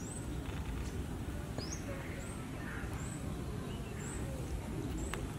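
A small bird chirping again and again: short, very high chirps every second or so, over a steady low background rumble.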